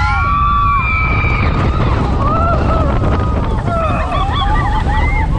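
Riders screaming as a water-ride boat plunges down its big drop, over a heavy rush of wind and water on the action-camera microphone. After the first long screams come more shouts and whoops as the boat splashes down.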